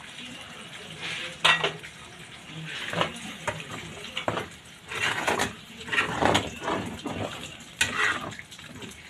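Metal spoon scraping and clinking against a metal frying pan while stirring a thin creamy sauce, in irregular strokes about every second.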